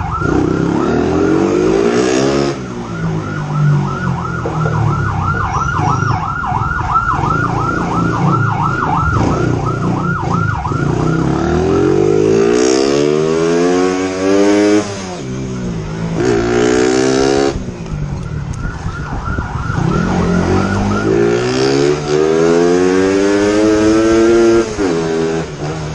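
Police motorbike siren on a fast yelp, warbling about three or four times a second, which changes about twelve seconds in to a slower wail rising and falling in long sweeps. Under it the motorbike engine runs at speed.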